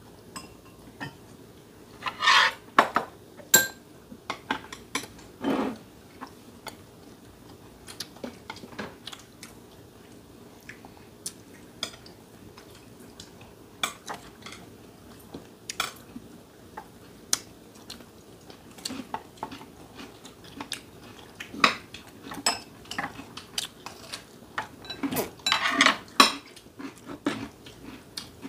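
Chopsticks clicking and tapping on ceramic plates and bowls as food is picked up, scattered light clinks throughout, with a few louder brief noises about two seconds in and again near the end.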